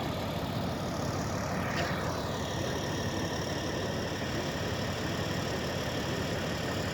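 Engine running steadily with a low rumble. About two seconds in, a faint whine glides down in pitch.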